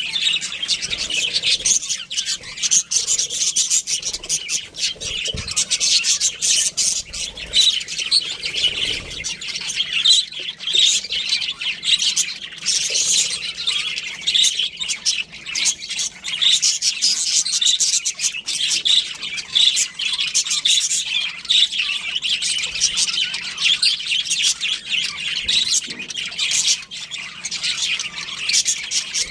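Budgerigars chirping and chattering continuously, many quick overlapping high calls at once.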